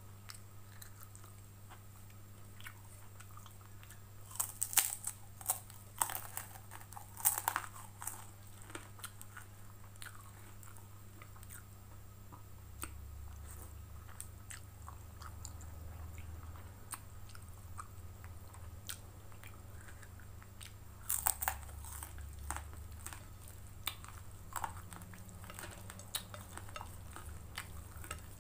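Close-up eating sounds: crisp krupuk crackers crunching under the teeth in two bursts of bites, one about four seconds in and one past twenty seconds, with quieter chewing of fried noodles between them. A low steady hum runs underneath.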